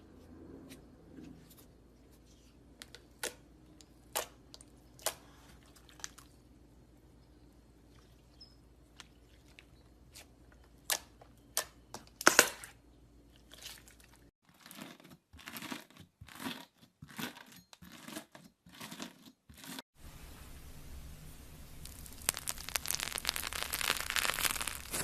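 Slime being pressed and pulled by hand, giving scattered sharp crackles and pops. Near the end these thicken into a dense run of crackling.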